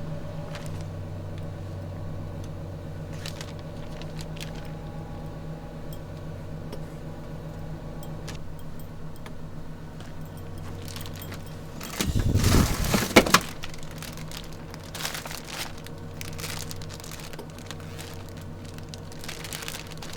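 Steady low hum of the pickup truck's idling engine, which is supplying power, under scattered small clicks and clinks of cooking gear being handled by hand. About twelve seconds in comes a louder rustling clatter lasting just over a second.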